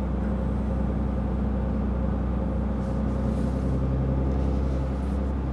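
Scania truck's diesel engine running steadily under way, heard from inside the cab as a low, even hum.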